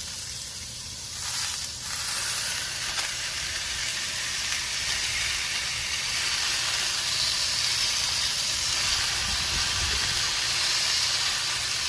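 Ground beef smash-burger patties sizzling on a Blackstone flat-top griddle. About a second and a half in the sizzle jumps louder as the patties are pressed flat, then it runs on as a steady frying hiss.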